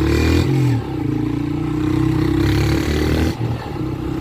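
Single-cylinder Honda CG Start motorcycle engine running through a loud aftermarket exhaust while riding. The pitch climbs, then drops sharply just before a second in, runs steady, and dips briefly a little past three seconds.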